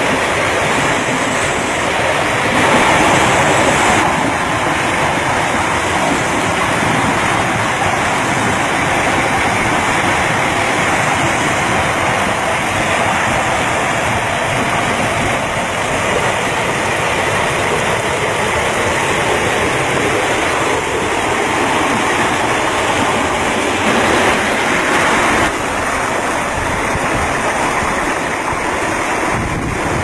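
Water running and splashing over rocks from a small cascade and a shallow stream, a steady rushing hiss that shifts in level abruptly a few times.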